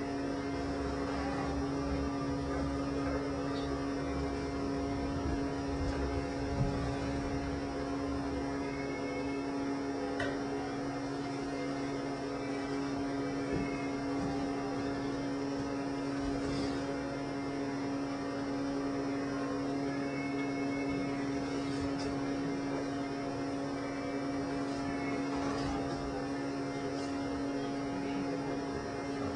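Steady electrical hum over background hiss, with low rumbling in the first several seconds and a few faint clicks later on.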